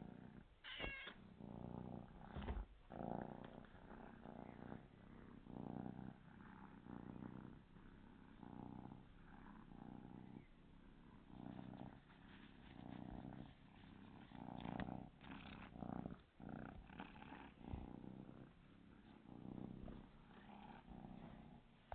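A kitten purring softly and steadily, the purr swelling and fading with each breath about every second and a half.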